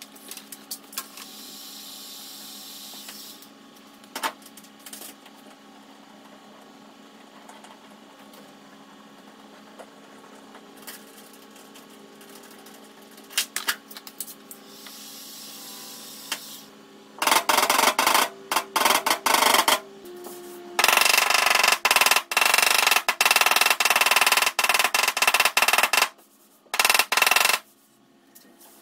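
A few scattered clicks and knocks over a low hum, then a power tool running in several abrupt bursts with a fast, dense rattle and a steady high whine, starting a little over halfway through.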